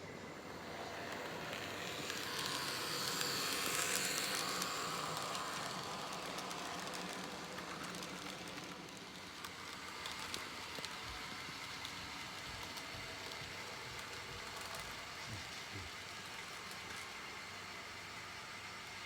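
Model train running on layout track: a steady rumble of the motor and wheels that grows louder about three to five seconds in as it passes close, then settles, with a few light clicks later on.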